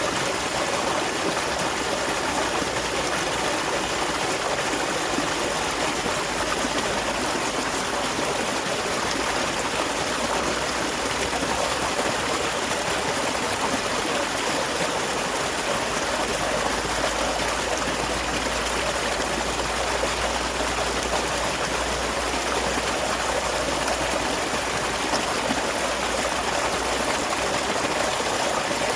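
Small waterfall splashing and flowing steadily, a continuous even rush of water with no pauses.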